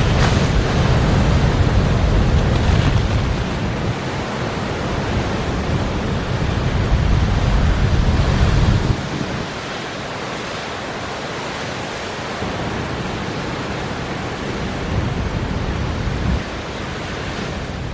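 Storm surf crashing on a rocky shore with strong gusting wind buffeting the microphone. A heavy low rumble of wind on the microphone fills the first half and drops away suddenly about nine seconds in, leaving a steadier hiss of surf and wind.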